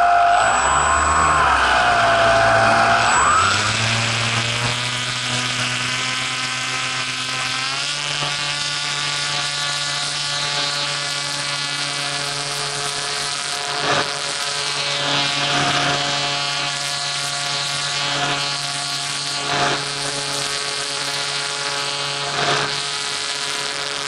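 Motor and propeller of a radio-controlled T-28 model airplane in flight. A high, wavering tone in the first few seconds drops at about 3.5 s into a lower, steady drone that steps up a little in pitch around 8 s. Wind rushes over the microphone throughout, with a few short loud gusts in the second half.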